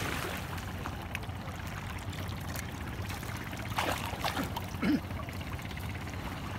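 Shallow seawater splashing and trickling around hands reaching into it to pick clams off the bottom, with one brief louder splash about four seconds in.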